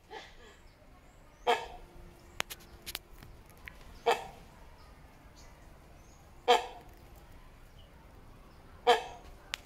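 A hornbill giving four loud single calls, evenly spaced about two and a half seconds apart, each one short and pitched.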